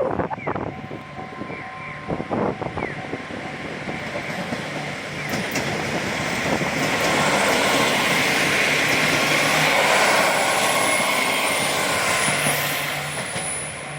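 KiRo 47 series diesel railcar passing at a level crossing. Scattered wheel clacks come in the first few seconds, then the running noise swells to a peak about ten seconds in and eases off near the end.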